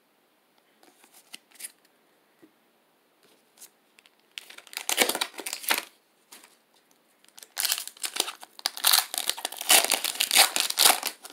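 Foil Pokémon booster pack wrapper crinkling as it is handled and torn open. A few light taps for the first four seconds, then two spells of loud crackling, the second and longer one filling the last few seconds.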